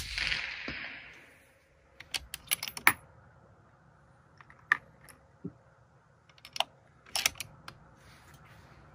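A suppressed rifle shot at the very start, from a Remington 700 in .260 Remington with an Otter Creek Labs Hydrogen-L titanium suppressor, its echo dying away within about a second. Then a series of sharp metallic clicks and clacks in three short clusters as the bolt is worked.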